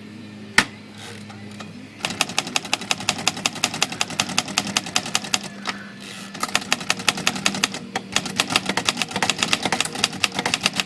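Underwood Universal manual typewriter being typed on: a single key strike about half a second in, then a fast run of sharp key strikes with short breaks, trying out the freshly serviced ribbon drive.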